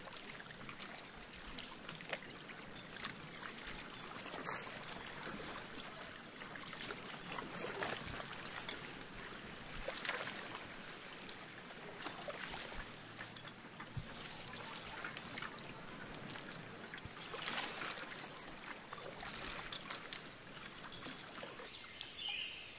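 Small waves lapping and splashing against a slowly moving boat's hull, coming in irregular soft surges every couple of seconds.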